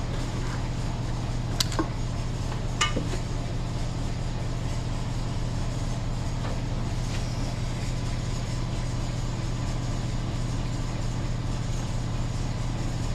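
Paint being mixed in a metal paint can: two sharp metallic clinks about a second and a half and three seconds in, over a steady low hum.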